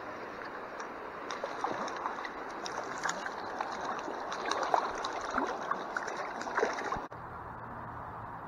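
Shallow stream water rushing and sloshing close by, with irregular splashes for several seconds. About seven seconds in it changes abruptly to a quieter, steadier flow with a faint low hum.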